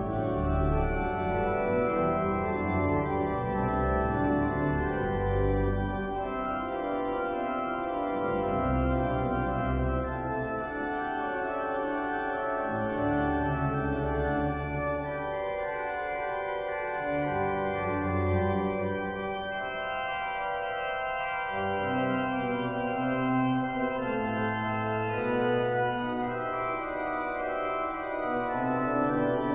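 Pipe organ playing classical music: sustained chords, with low pedal bass notes held for a few seconds at a time that come and go.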